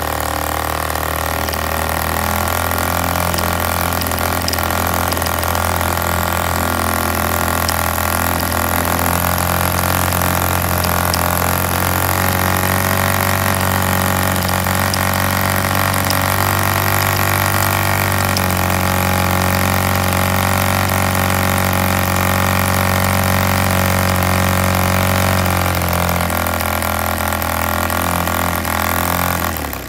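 Homemade Monsun 2.4cc model diesel engine running steadily with a large hand-carved 12x6 wooden propeller, its note shifting a few times while its compression screw is turned by hand. It cuts out abruptly at the very end.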